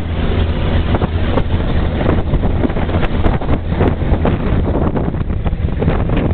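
Passenger ferry running at speed: a steady low engine drone under rushing spray from the hull and wind buffeting the microphone.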